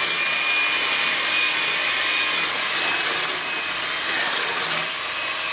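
Electric hand mixer running at a steady speed, its twin beaters whipping very cold, partly frozen evaporated milk in a bowl: a constant motor whine over a whooshing hiss that swells twice.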